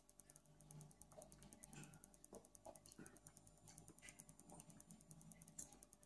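Near silence: quiet room tone with faint, scattered small clicks.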